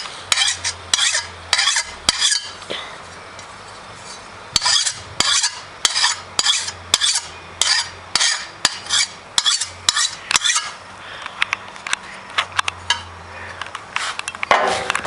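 Hand file scraping along the edge of a steel Honda lawnmower blade in quick, even strokes, about two a second, sharpening the cutting edge. The strokes pause about three seconds in, then resume, and become lighter and sparser in the last few seconds.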